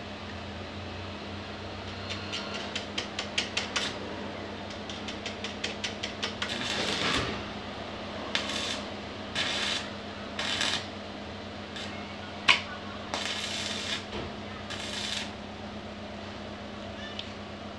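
Electric arc welding on a steel-tube chair frame: a run of quick crackles as the arc is struck, then about six short crackling sizzles of around half a second each, with one sharp click a little past the middle.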